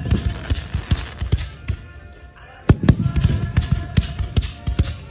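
Aerial fireworks display: a rapid string of shell bursts going off as loud bangs, easing off about two seconds in, then a fresh dense volley of bangs from about three seconds on.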